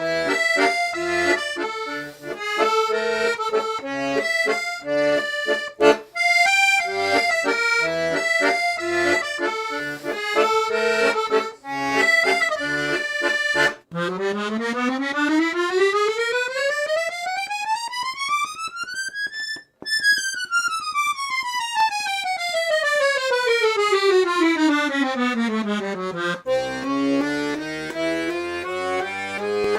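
Parrot Condor 5-row B-system chromatic button accordion playing a tune with melody over a rhythmic bass-button accompaniment. About halfway through, the player runs a single-note scale up the treble buttons over about three and a half octaves, then straight back down, and goes into chords near the end.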